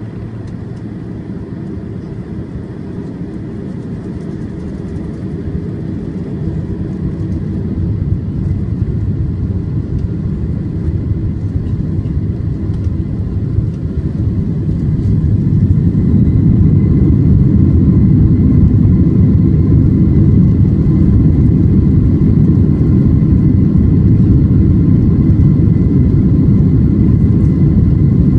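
Boeing 767 jet engines powering up for takeoff: a low rumble that grows steadily louder for about fifteen seconds, then holds loud and steady at takeoff thrust, with a faint steady whine above it.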